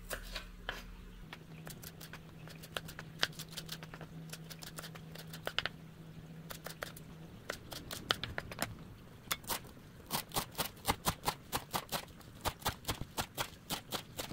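Kitchen knife slicing snow peas on a cutting board: scattered taps at first, settling into steady chopping at about three cuts a second for the last few seconds.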